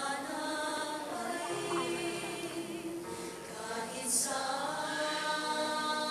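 Mixed-voice choir singing held chords, the notes changing every second or so, with a short hiss a little after four seconds in.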